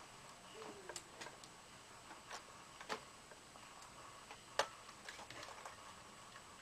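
Faint, irregular small clicks and taps of fingernails working a laptop's wireless-card antenna connectors loose, the loudest click a little past halfway.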